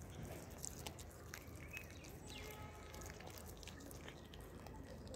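A cat chewing and biting raw fish: irregular small clicks of its jaws over steady low outdoor background noise.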